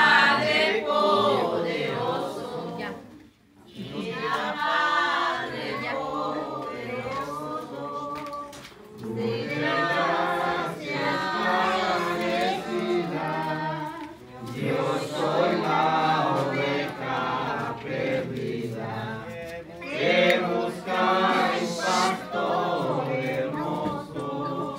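A group of voices singing a Spanish devotional hymn together without instruments, in phrases of a few seconds with short pauses between them.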